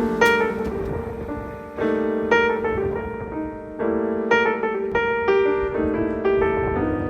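Background music: piano notes struck one after another, each fading away, with a sustained lower note underneath.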